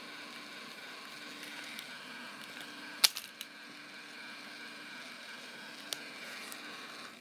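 A Hasbro i-Cat robotic toy cat gives off a steady electronic whir with a hiss, which cuts off suddenly at the end. A sharp plastic click comes about three seconds in, with a lighter one near six seconds, as the toy is handled.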